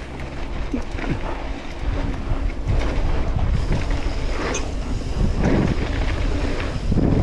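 Wind buffeting a GoPro's microphone as a mountain bike rolls fast down a dirt trail, with tyre rumble and short, irregular clatters from the bike over bumps.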